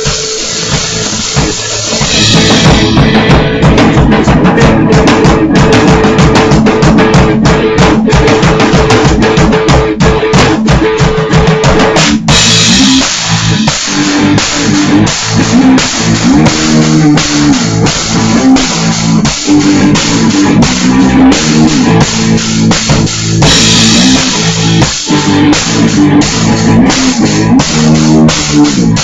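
Electric guitar and drum kit playing an instrumental stoner-rock riff, recorded loud and rough on a laptop microphone. The drums come in with a fast steady beat about two seconds in, and a held guitar note gives way to a chugging riff about twelve seconds in, with cymbal crashes there and again near the end.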